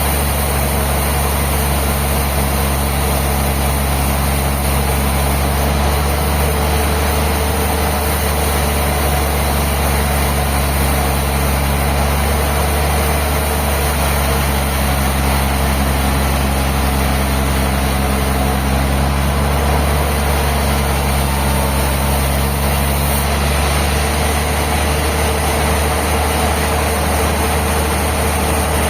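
Sawmill machinery running steadily: a constant heavy engine drone with a low hum, some of its tones shifting briefly in the middle.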